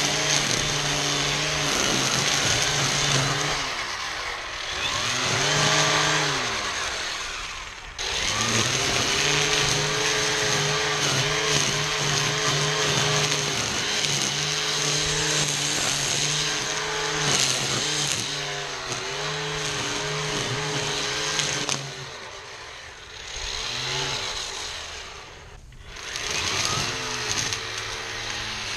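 ECHO 58-volt battery string trimmer running under load, cutting through tall weeds and grass with a steady electric motor whine. Its speed drops and climbs back several times, about four seconds in, near the eight-second mark and again for a few seconds past two-thirds of the way through.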